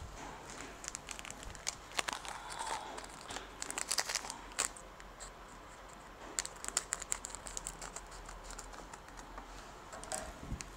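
Plastic instant-noodle seasoning sachets crinkling as they are handled and torn open, in bursts of sharp crackles with short pauses between.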